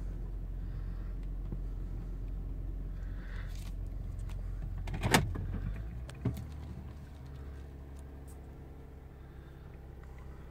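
2006 Lexus GS300's 3.0-litre V6 idling steadily, heard from inside the cabin, with the idle still raised while the engine computer relearns its idle after a battery reset and throttle body cleaning. A sharp knock comes about five seconds in and a smaller one a second later, after which the engine sound is quieter.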